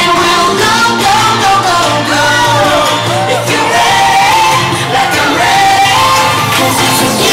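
Loud music with a singing voice carrying a gliding melody over a steady backing.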